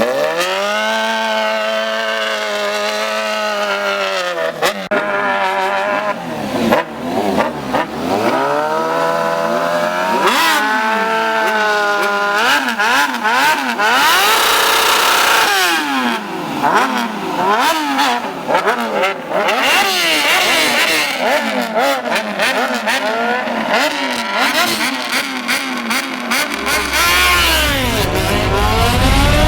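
Sport motorcycle engines revving hard, pitch climbing and dropping again and again as the bikes rev and accelerate down the drag strip; from about halfway several engines overlap. A deep low rumble comes in near the end.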